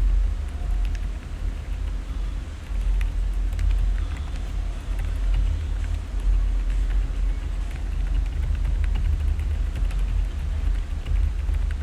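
Typing on an IK85 Plus mechanical keyboard with Outemu Lime silent switches and AKKO ASA keycaps: many short, irregular keystroke clicks over a steady low rumble.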